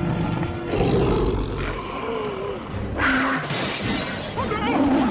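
Panthers roaring and snarling in an attack, with sudden crashing impacts about a second in and again around three seconds in.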